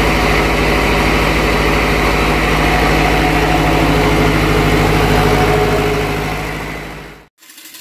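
Yanmar diesel engine of an open-frame generator set running steadily with an even low pulse, fading out about seven seconds in.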